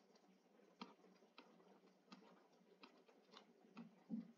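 Near silence broken by a few faint, irregular ticks of a stylus touching and lifting off a tablet screen while digits are handwritten.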